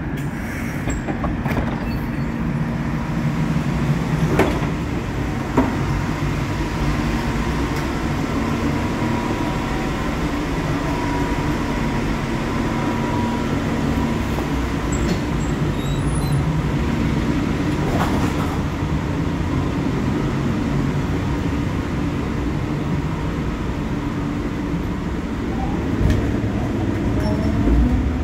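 Cologne Stadtbahn light-rail car standing at a platform, its onboard equipment giving a steady hum. A few short clicks sound briefly near the start and again about midway.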